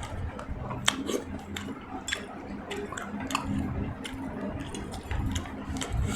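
Close-miked eating: wet chewing and squishing of food, with a scatter of small sharp clicks.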